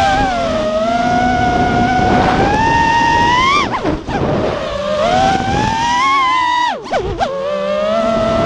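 FPV freestyle quadcopter's motors and propellers whining, the pitch climbing and falling with the throttle. It dips sharply about four seconds in and twice near seven seconds as the throttle is chopped and punched again.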